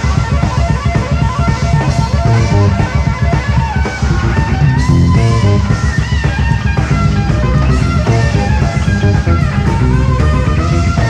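Live jazz-fusion band music: electric bass and drums under a melodic lead line with bent notes.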